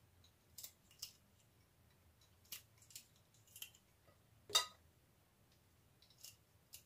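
Small kitchen knife cutting a fresh red chili pepper into long strips in the hand: faint, crisp snicks and clicks at irregular intervals, with one louder click about halfway through.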